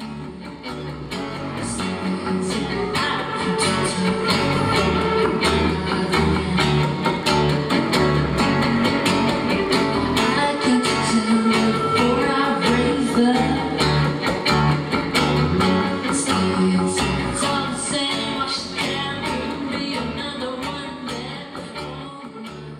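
Live band music: a woman singing over strummed acoustic guitar, with violin and electric guitars. It swells up over the first few seconds and eases down near the end.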